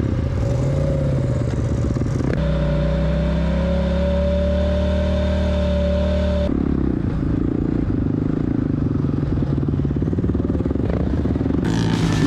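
Off-road engines running, in three cut-together shots: a dirt bike engine at low revs with the pitch wavering, then a side-by-side's engine held at a steady pitch for a few seconds, then a Honda CRF450R single-cylinder four-stroke dirt bike engine rising and falling in pitch as it rides across sand.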